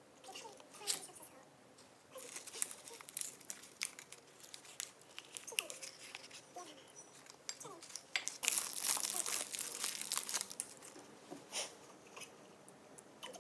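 A shiny twist-wrapped chocolate's wrapper crinkling as it is unwrapped, loudest in a dense burst about eight to ten seconds in. Small crackles and light chewing come before it.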